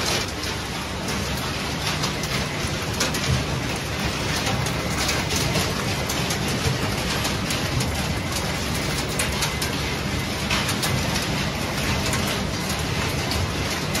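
Refrigerator recycling line running: a steady machinery drone under a dense clatter of many small impacts as shredded fridge scrap rattles along the conveyors and separators.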